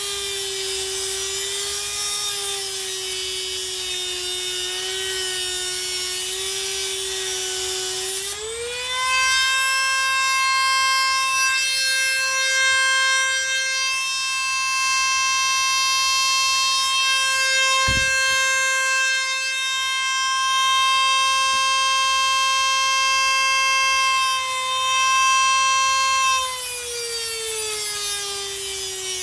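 A Dremel rotary tool with a cutting wheel running at high speed, giving a steady whine. Its pitch rises about eight seconds in, holds, and drops back down near the end.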